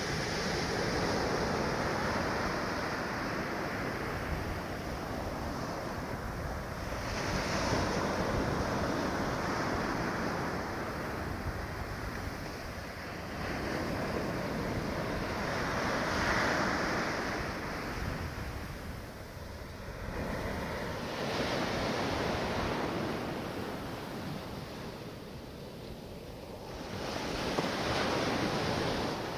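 Small waves breaking and washing up a sandy beach, the surf swelling and fading every five or six seconds, with wind buffeting the microphone.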